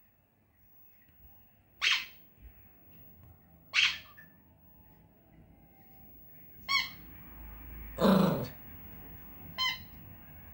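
Pomeranian giving about five short, high-pitched whines and yips, a second or two apart, the loudest about eight seconds in: the dog is demanding a toy that is being kept from it.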